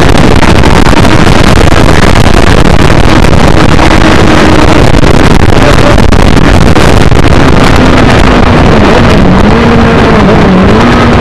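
Heavy wind buffeting on an onboard microphone at speed on a 2007 Suzuki GSX-R600 motorcycle, loud and distorted throughout. The inline-four engine's note sits faintly beneath it and dips twice near the end.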